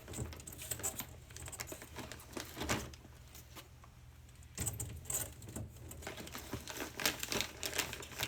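Plastic water bottles being handled and set onto fridge shelves: irregular clicks and knocks, with a few duller thumps about halfway through.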